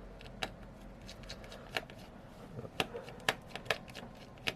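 Small, sharp clicks and ticks at irregular intervals, about six in all, from a precision screwdriver and fingers working the small screws inside an opened smartphone.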